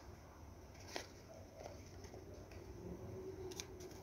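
Quiet handling sounds over a low steady hum: a single faint click about a second in and a few light ticks near the end, as hands work among a potted plant's leaves and its plastic nursery bag.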